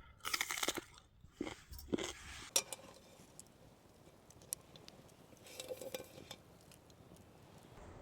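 A handful of short crunches and clinks in the first few seconds, then quieter rustling with faint ticks: objects being handled by hand.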